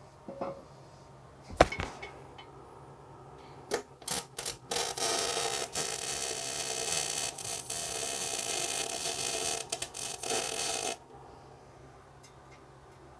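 MIG welding arc on steel pipe: a few short sputtering arc starts, then a steady crackling arc of about six seconds that cuts off abruptly near the end.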